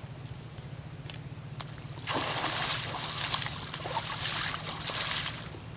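Water splashing and sloshing as a person wades waist-deep and works a fishing net, starting about two seconds in and lasting about three seconds.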